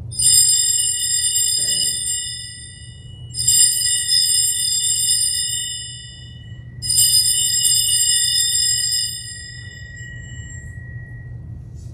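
Altar bells rung three times at the elevation of the chalice during the consecration. Each ring starts suddenly and fades over about three seconds, and the last one dies away more slowly.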